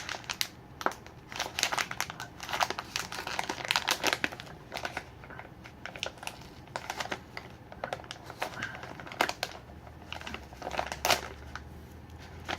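Plastic snack packaging crinkling and crackling in irregular bursts as it is handled and pulled at while someone tries to get a sealed package open.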